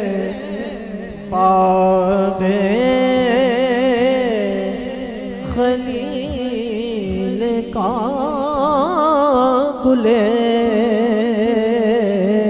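A man sings an Urdu naat through a microphone and sound system, drawing out long ornamented notes with heavy vibrato. A steady low drone holds underneath.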